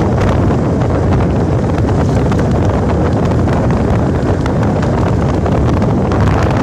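Loud, steady wind buffeting the microphone: a low rumble with crackle over it and no break.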